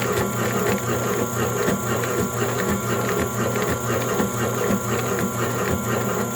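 Motor-driven cutting machine running steadily with a constant hum, and irregular clicks and rattles from its moving parts.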